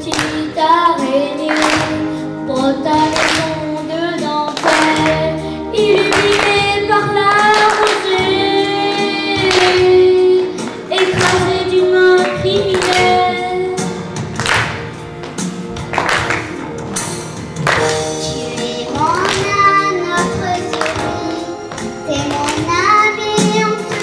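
A boy singing a song through a headset microphone, with instrumental accompaniment keeping a steady beat.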